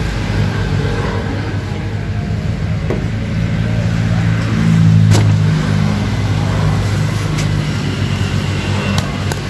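Vehicle engines running in passing road traffic: a steady low hum that swells for a moment about five seconds in. A few light knocks come from rice sacks being shifted in a pickup truck bed.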